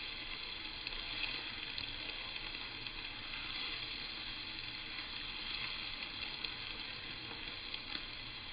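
Crushed ginger, garlic and green chilli sizzling steadily in hot coconut oil in a pan, with a few faint pops.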